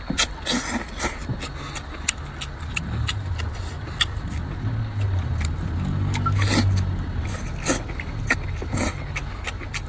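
Close-up slurping and wet chewing of a dressed wakame seaweed salad: repeated sharp smacks and clicks with two long slurps, one about half a second in and one around six and a half seconds, over a steady low rumble.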